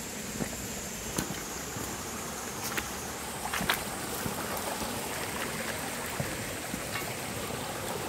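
Shallow mountain stream running over pebbles and rocks: a steady rush of flowing water, with a few short sharp clicks.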